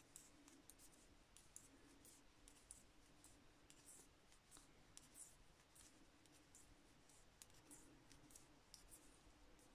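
Faint, irregular clicking of metal knitting needles as stitches are worked, over near-silent room tone.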